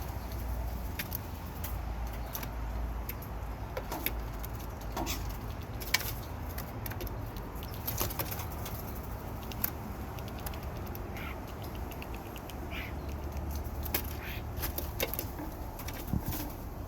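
Birds at a peanut feeding spot: scattered sharp clicks and ticks with a few brief chirps about two-thirds of the way through, over a steady low rumble.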